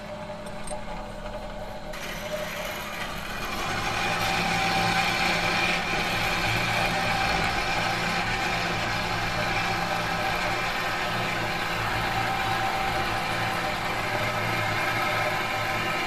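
Large industrial metalworking machine running, a steady mechanical hum with several held tones over a dense noise. The noise builds up over the first few seconds and then holds level.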